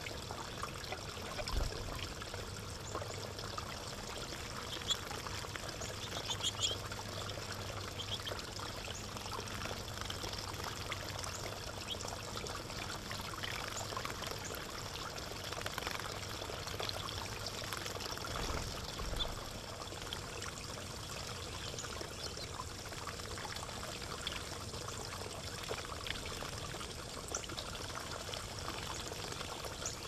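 Water trickling steadily into a small rocky pond, with brief splashes from small birds bathing in the shallows.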